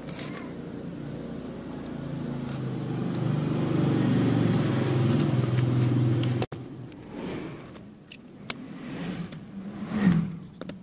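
A motor-vehicle engine runs steadily, growing louder, then stops abruptly about six and a half seconds in. After that come small metal clicks and scrapes of pliers working on the springs of a scooter's CVT clutch shoes.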